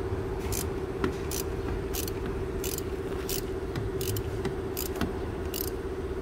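Ratchet with a 27 mm socket on extensions, clicking in short bursts about once every 0.7 seconds as it is worked back and forth to loosen the oil filter housing cap. A steady hum runs underneath.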